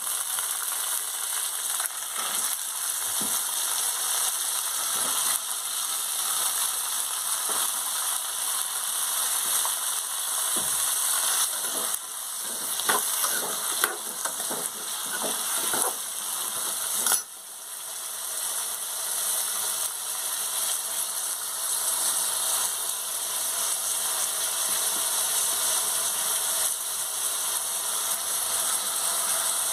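Cubed potatoes sizzling steadily in hot oil in a metal kadhai, with a steel spoon scraping and knocking against the pan as they are stirred during the first half.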